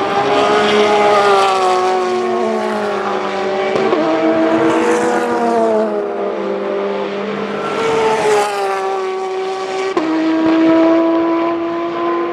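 Race car engines at high revs, the engine notes gliding up and then dropping abruptly with upshifts about four seconds in and again near the end, as cars pass.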